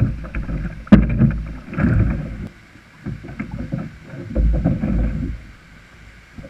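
Knocks and scraping as a wheeled kayak cart is lifted and set onto a plastic kayak's stern. There is one sharp knock about a second in and another cluster of clunks a little after halfway.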